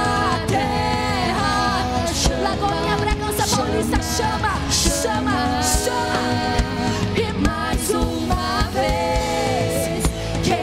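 Live Portuguese-language worship song: a male lead and female singers singing into microphones over a band with electric guitar and bass, the music running steadily with repeated sharp beats.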